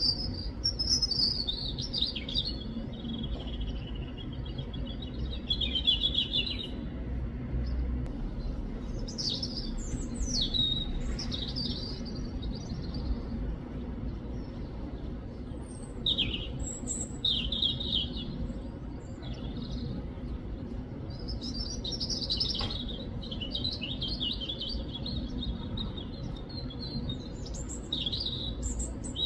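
A robin chirping and singing in short phrases of quick, high notes, broken by pauses of a few seconds, over a steady low background hum.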